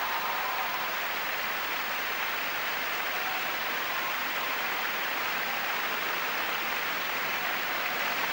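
A large arena crowd applauding steadily.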